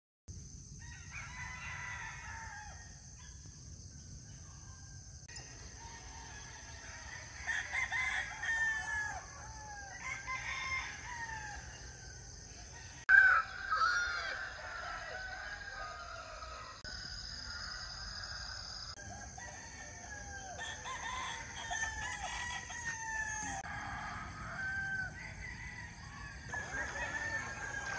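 Roosters crowing and clucking, with other bird calls, over a steady high-pitched ringing in the background. The loudest crow comes about 13 seconds in.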